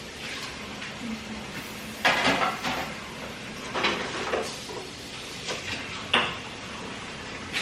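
A few sharp knocks and clatters about two seconds apart, with quiet rustling between them.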